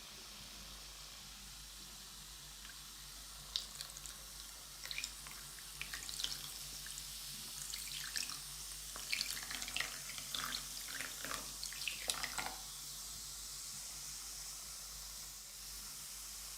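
Water splashing and dripping in short bursts as a hand works in a basin of bath-bomb water, over a steady hiss.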